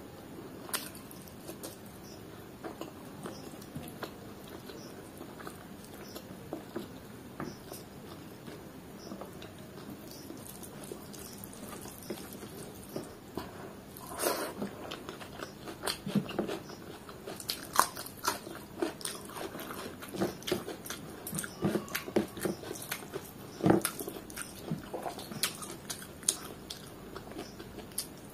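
Close-up mouth sounds of a person eating rice and chicken liver curry by hand: chewing with small clicks and smacks. The clicks are sparse at first and become busier and louder from about halfway, as a new handful of rice goes in.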